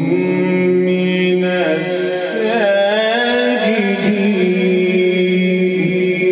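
Male Quran reciter's voice drawing out one long melodic phrase of tilawat. He holds a steady note, winds through wavering ornamental turns about halfway, then settles onto a held note again.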